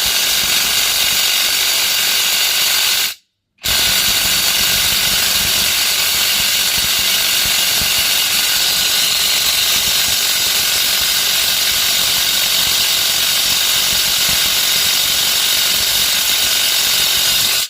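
Cordless electric impact wrench running on test, its motor and hammer mechanism sounding steadily. It stops for about half a second a little over three seconds in, then runs on and cuts off suddenly at the end.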